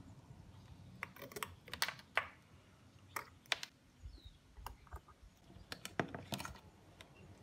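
Irregular sharp clicks and light handling rattle as alligator clips are unclipped and wire is handled and unwound from a wooden batten, with a dull low bump about four seconds in.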